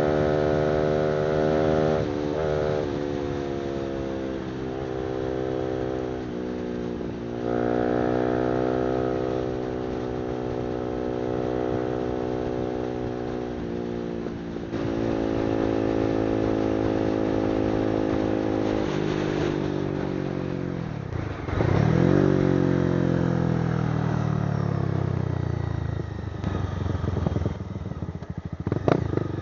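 Honda CBR300R's single-cylinder engine through an aftermarket exhaust while riding. The engine note climbs and drops in steps as it shifts up several times, holds steady, dies away about 20 seconds in, then climbs again.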